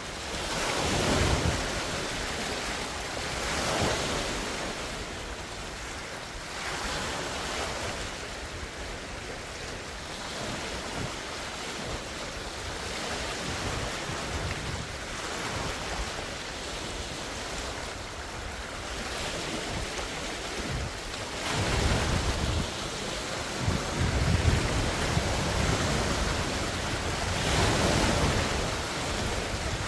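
Large wind-driven lake waves breaking and splashing on the shore in swells every few seconds, with strong wind buffeting the microphone as low rumbles, heaviest in the last third.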